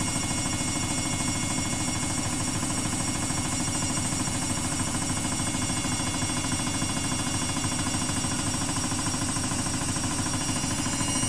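Samsung WW80J5555FWEU front-loading washing machine on its spin cycle: a steady high motor whine over a fast, even rumble from the turning drum.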